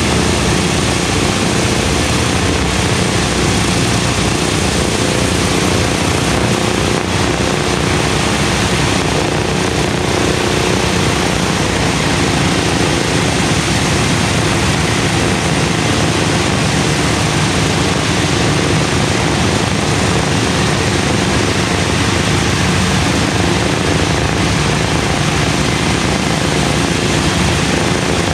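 Four Wright R-1820 Cyclone nine-cylinder radial engines of a B-17 bomber running together at idle, a loud, steady propeller-engine drone, warming up after a cold start.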